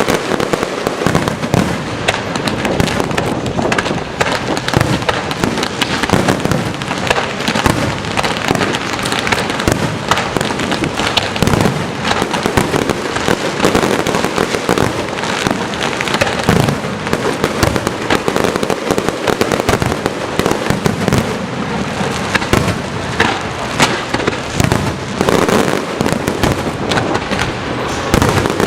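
Fireworks going off continuously: a dense, unbroken run of sharp cracks and pops.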